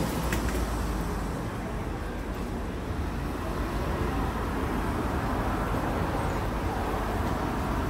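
Street traffic noise: cars going by on the road, a steady low rumble throughout.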